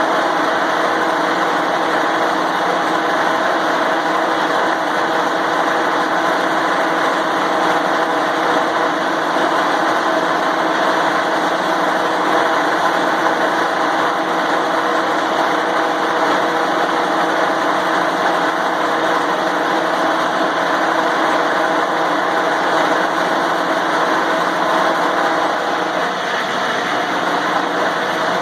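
Electric angle grinder running steadily with a constant whine, spinning a snowblower wheel up to speed to spread Fix-A-Flat sealant inside the flat tire. Its tone shifts slightly near the end.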